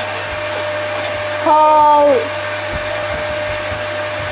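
Household vacuum cleaner running steadily with a constant motor whine. About a second and a half in, a person briefly calls out a loud 'Oh!' over it, falling in pitch at the end.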